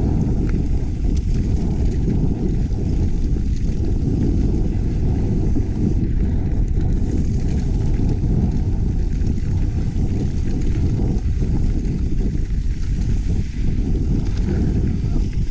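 Steady rush of wind buffeting an action camera's microphone while riding a mountain bike downhill, mixed with the rolling noise of the bike on a dirt trail.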